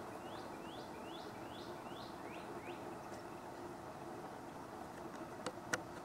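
A small songbird singing a run of about eight short, quick, sweeping whistled notes, evenly spaced over about three seconds. Two sharp clicks follow near the end, louder than the song.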